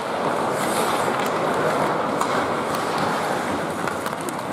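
Ice hockey play on a rink: a steady wash of rink noise from skates on the ice, with a few short sharp clicks of sticks and puck.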